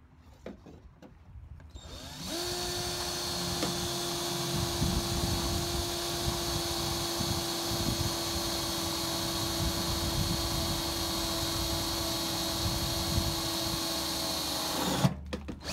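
Cordless drill driving a 3/4-inch self-tapping screw into the RV's metal frame. The motor spins up about two seconds in, runs at a steady pitch for roughly twelve seconds and stops just before the end.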